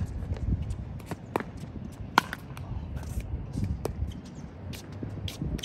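Plastic pickleball struck by paddles in a rally, a string of sharp hollow pops at irregular spacing, the loudest about two seconds in.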